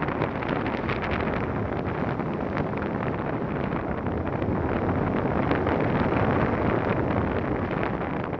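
Wind rushing over an action camera's microphone in tandem paraglider flight: a steady, fairly loud rush with small crackling buffets, swelling a little about two-thirds of the way through.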